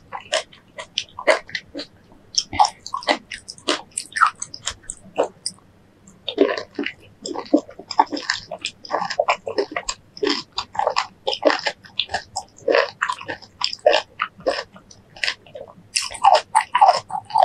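Close-miked mouth sounds of eating fresh fruit: wet bites and chewing, a dense run of crisp clicks and smacks with a brief pause about six seconds in.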